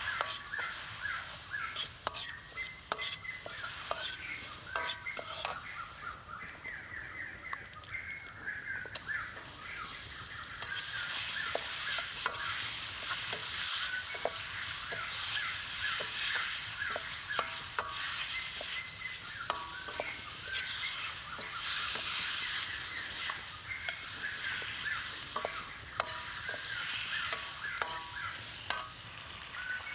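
Chili, aromatics and octopus stir-frying in oil in a steel wok: a metal ladle scrapes and clinks against the wok while the food sizzles. The sizzle grows louder from about ten seconds in.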